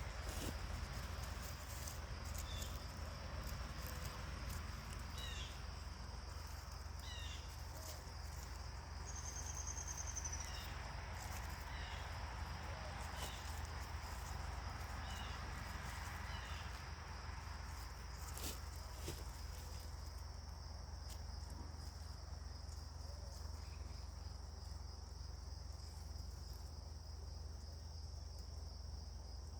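Outdoor birdsong and insects: a steady high insect chirring runs throughout, while songbirds give short chirps repeated every second or so through the first half, with one brief high trill. A steady low rumble sits underneath.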